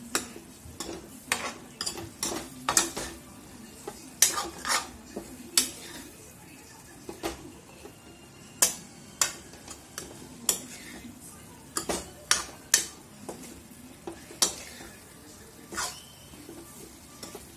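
A metal spoon stirring spiced chicken pieces in a stainless steel kadai: irregular clinks and scrapes against the pan, one or two a second, over a steady low sizzle of the chicken frying with its masala in oil.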